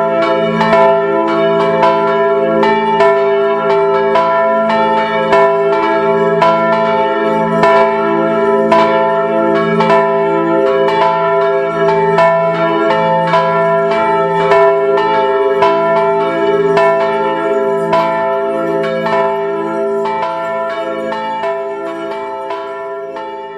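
Church bells pealing, several large bells struck in quick, irregular succession with their tones ringing on over one another, fading out near the end.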